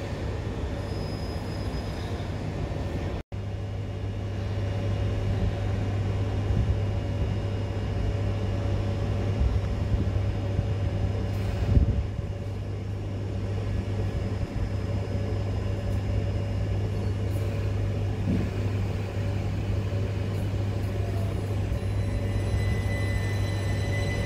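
Southeastern Class 376 Electrostar electric multiple unit pulling out of the station: a steady low rumble and hum from the train, with a single clunk about halfway through. A high whine comes in and rises slightly near the end as the train gathers speed.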